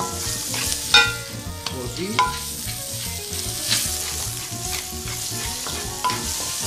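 A hand-twisted pepper mill grinding black pepper, with sharp crunching clicks at uneven intervals. Under it, guanciale sizzles steadily as it fries in a pan.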